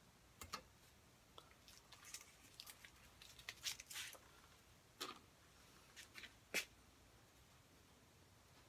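Quiet, scattered handling noises of fingers picking at masking tape on a painted wooden didgeridoo: soft scratches and small tearing sounds with a few sharper clicks and taps, the busiest stretch between about two and four seconds in.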